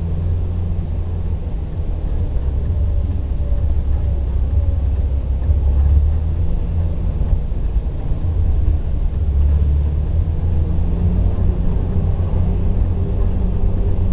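Jeep Wrangler TJ driving an off-road trail: a steady low rumble of engine and drivetrain heard from inside the vehicle, swelling slightly now and then.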